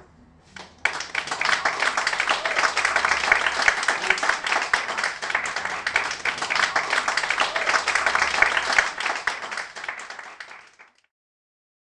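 Audience applause, many hands clapping, starting abruptly about a second in and stopping suddenly near the end.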